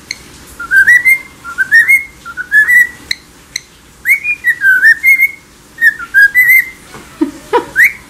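Cockatiel singing: a run of short whistled phrases, each sliding up to a held note, about one a second. Two sharp clicks come about three seconds in.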